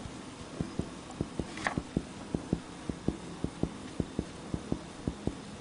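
Mediate chest percussion: a fingertip tapping on a finger pressed to the chest wall, giving short low taps in quick pairs, about three to four a second, starting about half a second in. The examiner is percussing along the sternal border at the second intercostal space to mark the edges of the vessel bundle's dullness.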